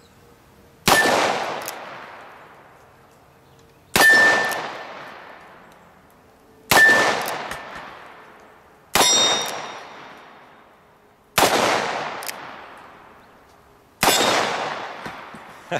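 Six shots from a third-generation Colt Single Action Army revolver firing .45 Colt cowboy action loads, spaced about two to three seconds apart. Most shots are followed by a brief ring of steel popper targets being hit.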